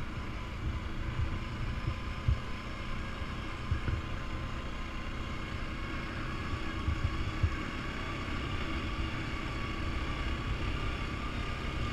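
Quad bike (ATV) engine running steadily while riding over a grass track, with wind buffeting the helmet-mounted microphone in low gusty thumps. A faint thin whine creeps slightly upward in pitch in the second half.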